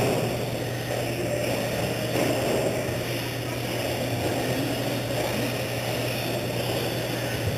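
Several electric RC stadium trucks racing around an indoor dirt track, heard as a steady mix of motor whir and tyre noise.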